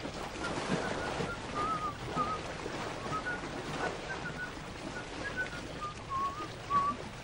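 A string of short, high whistled notes, a few a second and changing in pitch, over a soft steady hiss.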